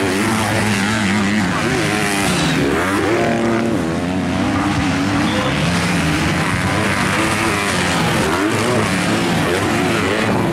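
Several motocross bikes racing on a dirt track, their engines revving up and falling back over and over as the riders shift and throttle through the course.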